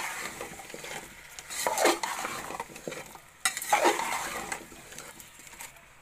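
Slotted metal spatula scraping and stirring cubed potatoes and turnips through a fried masala in a steel pot, with a light sizzle. The strokes come about every two seconds and grow weaker near the end.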